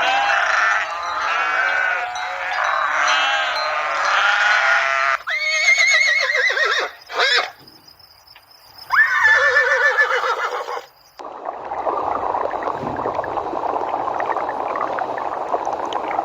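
Goats bleating: several overlapping calls at first, then two single long quavering bleats, followed by a steady noisy stretch without calls.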